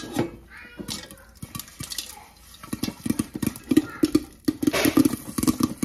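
Popcorn kernels popping in hot olive oil inside a covered stainless steel pan, with pops and clatter of kernels against the glass lid. The popping is sparse at first and becomes much faster after about three seconds, with the pan rattling as it is shaken on the stove grate.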